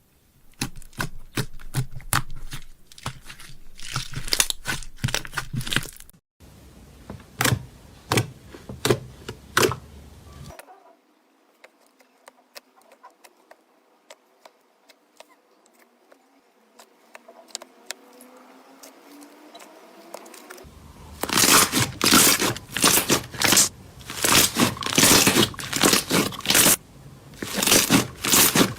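Slime being squeezed, poked and stretched by hand, making rapid crackling, popping and crinkling sounds. The sounds go much quieter for about ten seconds in the middle, then come back louder.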